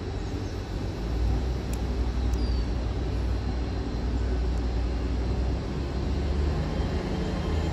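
Hitachi Class 800 bi-mode train pulling out on diesel power, its underfloor diesel generator engines giving a low, steady drone that grows louder about a second in. The drone rises in pitch near the end as the train accelerates.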